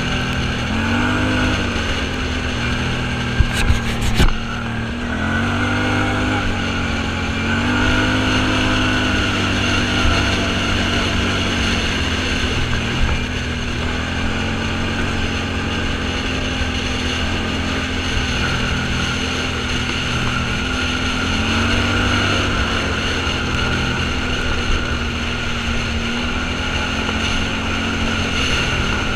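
Off-road vehicle engine running under way, its revs rising and falling several times over a steady rumble, with a few sharp knocks about three to four seconds in.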